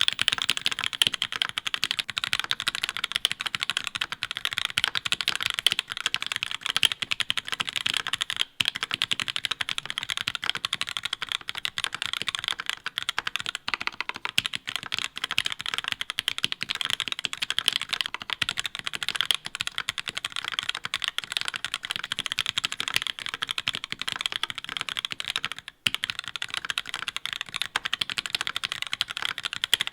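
Fast, continuous typing on a mechanical keyboard, keystrokes following close together, with two brief pauses. The keycaps are Linworks LINx3 Retro and GMK sets, typed back to back for comparison.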